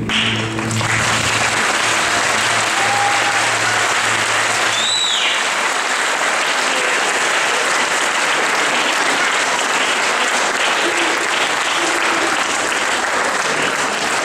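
Audience applauding steadily, with the last held note of the music dying out in the first five seconds. A single short whistle rises and falls about five seconds in.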